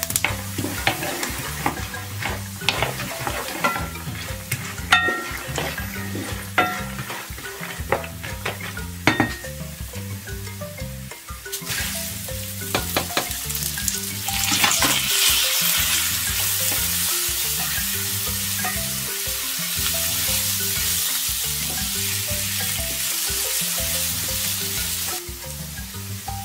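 Wooden spoon stirring almonds toasting in oil in a granite-coated frying pan, with sharp clicks and scrapes. About fourteen seconds in, rice is poured into the hot oil and sizzles with a steady loud hiss that drops away shortly before the end.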